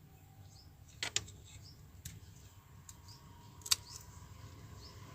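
Sharp clicks of a charging cable's wire being snipped through with a cutter: a close double click about a second in, a faint click at two seconds, and the loudest snip near four seconds.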